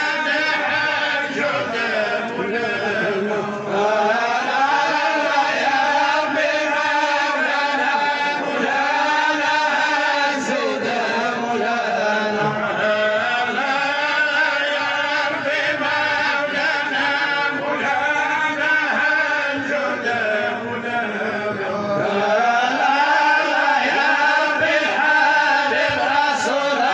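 Male voices chanting Islamic dhikr, a continuous melodic religious chant in long phrases that rise and fall in pitch.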